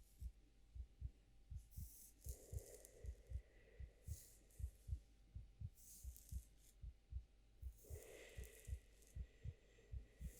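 Quiet heartbeat, a steady lub-dub of soft low thuds in pairs. Faint airy hissing rustles come and go about every two seconds over it.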